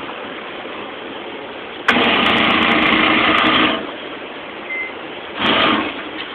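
Motorized target carrier at an indoor shooting range running the paper target back, a whirring motor with a rattle of clicks for about two seconds, then a second short run near the end, over a steady background rush.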